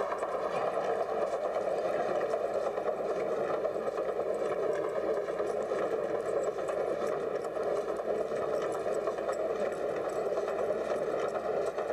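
Giant wooden playground wheel rolling on its mount as a dog runs inside it: a steady mechanical rumble and rattle, like a train on rails, with no breaks.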